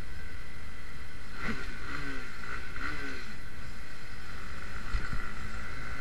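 Honda CB150R's single-cylinder engine running while riding, under a steady rumble of wind on the action camera's microphone. A few short rising-and-falling tones come in between about one and a half and three and a half seconds, and a brief low thump about five seconds in.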